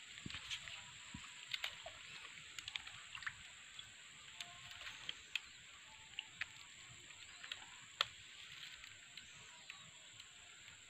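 Faint water sloshing and scattered sharp clicks and snaps as a wooden pole prods a wire fish trap in a shallow pond among dry palm fronds, with one louder click about eight seconds in, over a steady high whine.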